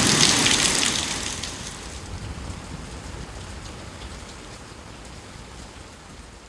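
Rain falling steadily, then fading out gradually from about a second in.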